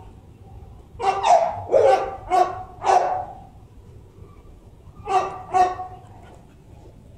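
A dog barking: a quick run of about five barks between one and three seconds in, then two more a little after five seconds.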